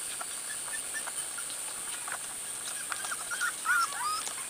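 Corgi puppies giving short, high squeaky whimpers, scattered at first and coming thicker about three seconds in, over a steady high hiss.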